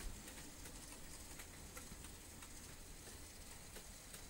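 Faint, irregular light ticks over a low hum: a model class 43 train running along the layout's track.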